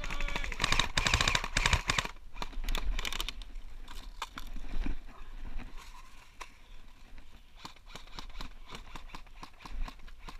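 Airsoft rifles firing rapid automatic bursts of BBs: a dense burst in the first two seconds, another short burst around three seconds in, then scattered shots and short bursts.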